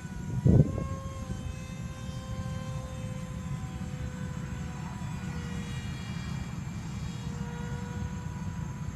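A radio-controlled model plane's motor whining steadily in flight, its pitch drifting slightly as it flies, over a low rumble of wind on the microphone. A loud thump about half a second in.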